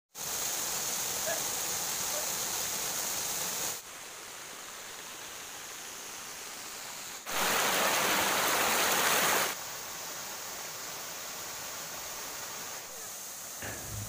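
Waterfall splashing into a rock pool: a steady rush of falling water. Its level jumps up and down abruptly a few times, and it is loudest for a couple of seconds about seven seconds in, where the water pours close by over rock.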